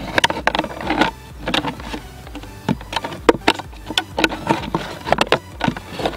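Utility knife cutting around a thin plastic PET bottle: irregular sharp clicks and crackles of the plastic, with short scraping sounds as the blade is drawn through.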